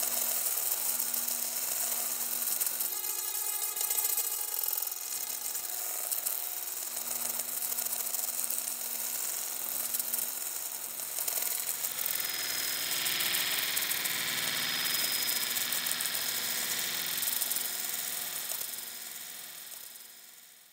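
Output of a glitchy granular effect preset built in FL Studio Patcher: a dense, hissy wash of sound grains over faint held low tones, with a rapid fluttering repeat a few seconds in. It fades out near the end.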